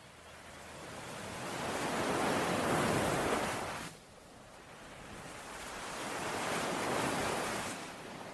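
Ocean waves washing in: two surges, each swelling up to a rush. The first cuts off suddenly about four seconds in; the second fades away near the end.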